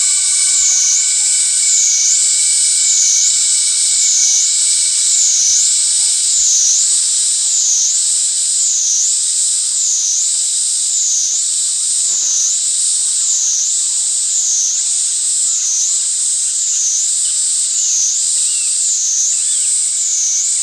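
Cicada buzzing: a continuous, high-pitched, steady drone that swells and dips in pitch about once a second.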